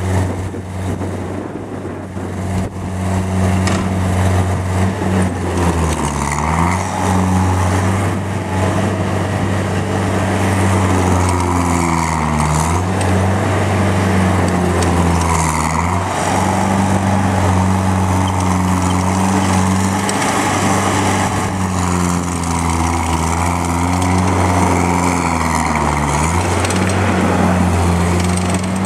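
2005 ASV RC50 rubber-track skid steer's diesel engine running while the machine is worked. Its pitch dips and recovers about four times as it takes and sheds load.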